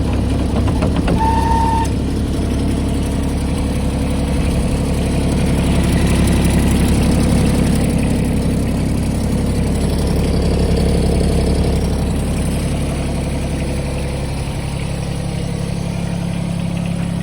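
The three-cylinder diesel engine of a John Deere X495 ride-on lawnmower running steadily. A short high beep sounds about a second in, and the engine note shifts slightly near the end.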